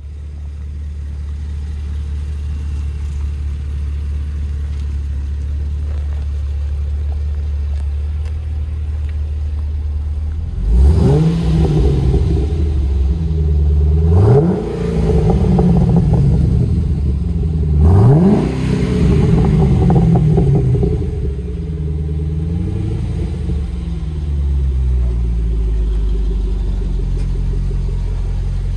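A Holden Commodore VF SS-V ute's V8 engine and exhaust idling steadily, then revved sharply three times about eleven, fourteen and eighteen seconds in, each rev rising fast and dropping back to idle, before idling on.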